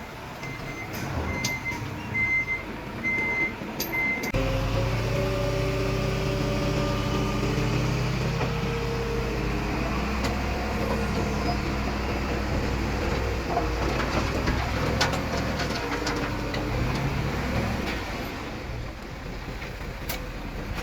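A heavy machine's reversing alarm beeping steadily for about four seconds, about one and a half beeps a second. Then a large diesel engine takes over abruptly, running loud and steady with its pitch shifting a little as it works.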